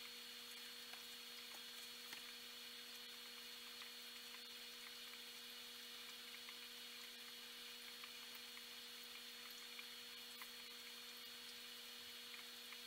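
Faint, steady electrical hum from running aquarium equipment, with scattered faint ticks.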